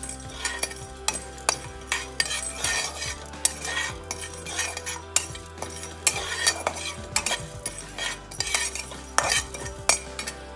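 Metal spatula stirring and scraping whole spices (carom seeds, cumin seeds, black peppercorns and rock salt) as they dry-roast in a metal pan, with irregular scrapes and sharper clinks of metal on metal.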